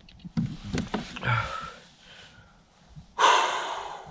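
A man breathing hard from the exertion of fighting a large pike, with a few short grunts early on and a loud exhale about three seconds in.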